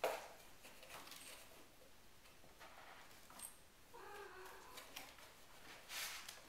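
Young RagaMuffin kittens at play: a sharp knock right at the start, then scattered light taps and scuffles of paws on a wooden floor, a short kitten mew about four seconds in, and a brief rustle near the end.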